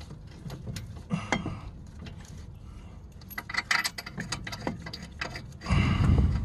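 Caliper bolt and washer being threaded by hand into a BMW E65 front brake caliper: scattered small metallic clicks and rattles. A louder rustle comes near the end.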